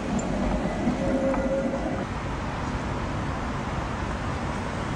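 Tatra KTNF6 tram running past on street track: a rumble of wheels on rails with a thin steady whine for the first two seconds. After that the sound drops to a quieter, even street noise.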